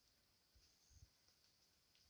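Near silence: faint outdoor ambience with a steady high hiss and two soft low thumps, about half a second and a second in.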